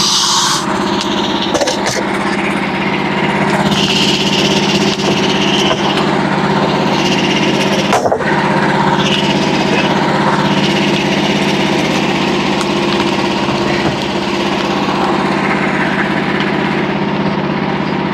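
Small gas engine of a portable band sawmill running at a steady speed, with a short sharp knock about eight seconds in.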